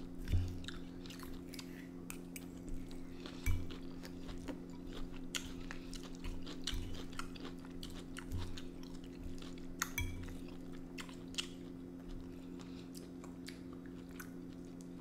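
Close-up chewing and biting of food, with many short wet clicks and a few dull low thumps, over a steady low hum.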